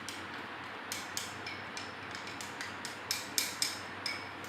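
Faint light taps and clicks of kitchen handling, scattered and irregular, a few more near the end, over a steady background hiss.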